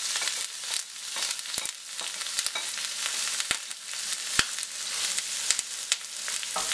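Diced onion sizzling in hot oil in a frying pan, just tipped in and starting to fry, with scattered clicks and scrapes as a spatula spreads it around the pan.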